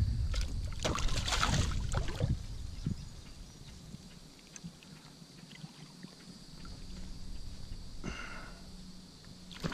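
A hooked bass thrashing and splashing at the water's surface beside a float tube as it is reached for by hand. The splashing is heaviest in the first three seconds, then dies down to quieter water movement.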